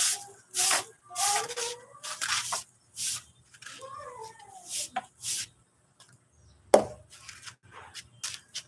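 Soft grass broom (walis tambo) sweeping a concrete path in brisk swishes about once a second, with a short pause and then one sharp knock, the loudest sound, near the end.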